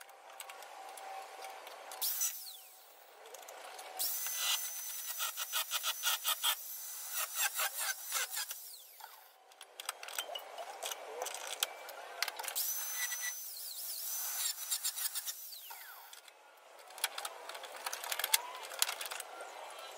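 Power tool cutting rusted sheet steel out of a car body's C-pillar, in several short runs of a few seconds each with pauses between. The cutting makes a high-pitched whine with a rapid rhythmic chatter.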